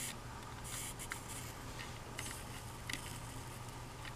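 Flux sizzling in short, faint bursts as a soldering iron melts solder onto a wire at a transformer terminal, over a low steady hum.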